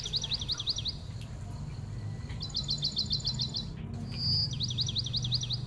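A small bird gives high, rapid chirping trills in three bouts of about a second each, the last one opening with a short whistled note, over a low steady hum.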